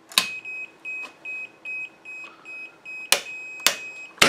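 Fujikura FSM-60S fusion splicer beeping repeatedly, a short high beep about two to three times a second, for about three seconds. Its fiber clamps and heater lid snap shut with several sharp clicks, the loudest right at the end.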